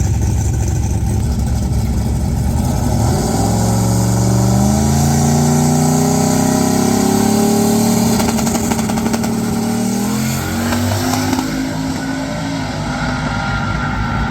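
Turbocharged LS V8 in a drag-racing Holden Commodore wagon running hard down the strip: a low rumble, then the engine note climbs in pitch in steps through the gears from about three seconds in, levels off and fades with distance near the end.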